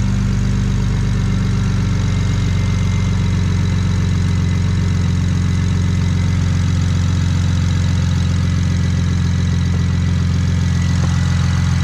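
The BMW 335i's single-turbo N54 inline-six idling steadily.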